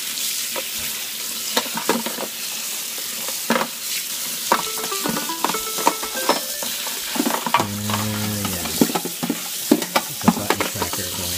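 Tap water running and splashing over a dishwasher's plastic filter screen as it is rinsed clean of food debris, with irregular clicks and knocks as the filter is handled in the sink. A brief low-pitched sound comes about eight seconds in.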